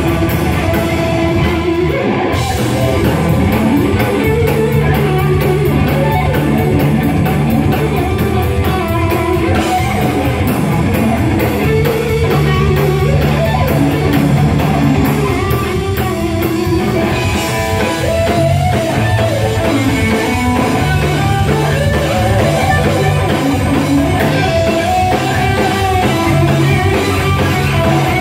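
Live instrumental rock band playing: an electric guitar carries the melody over held bass guitar notes and a drum kit keeping a steady beat on the cymbals.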